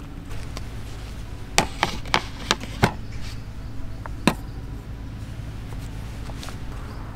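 A series of sharp knocks of hard objects: five in quick, uneven succession, then one more about a second and a half later.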